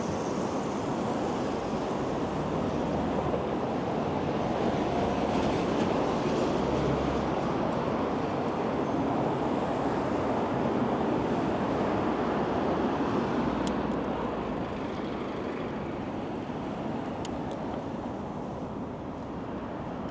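Steady rush of wind on the microphone mixed with city traffic noise while riding a bicycle, easing off slightly about two-thirds of the way through, with a few faint ticks near the end.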